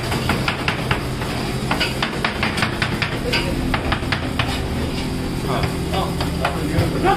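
Metal spatula scraping and clicking against a ridged sandwich grill plate and then a plastic cutting board, many short clicks in quick succession, over a steady low hum of kitchen equipment.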